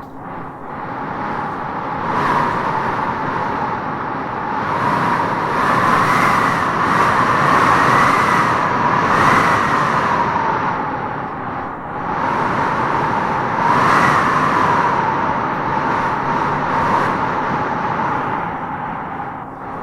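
Howling wind gusting through trees: a steady rush with a wavering, whistling howl that swells and eases in gusts, strongest from about five to ten seconds in and again around fourteen seconds.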